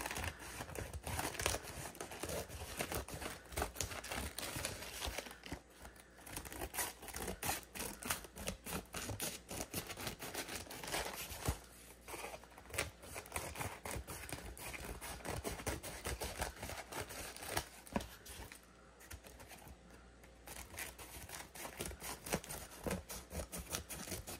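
Scissors snipping through thin decoupage paper: a long run of short, irregular snips with a few brief pauses.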